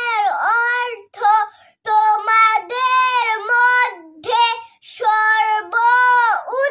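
A young girl singing a hadith as a melodic chant, alone and without accompaniment. Her voice rises and falls in long held phrases, with short breaks for breath.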